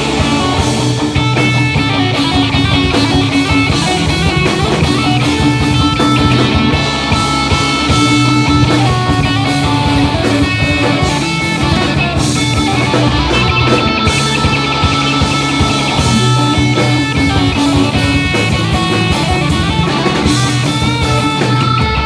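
Pop-punk band playing live: distorted electric guitars and bass over a drum kit.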